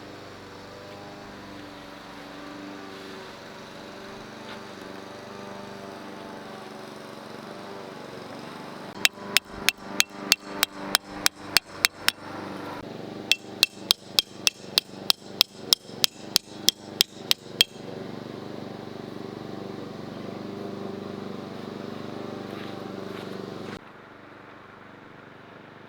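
A hammer strikes metal tent stakes in two quick runs of blows, about four a second, with a short pause between. Each blow has a sharp, ringing knock.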